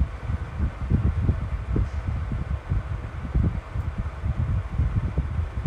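Handling noise: low, irregular muffled thumps and rumbling as hands and pliers work a softened plastic action figure apart.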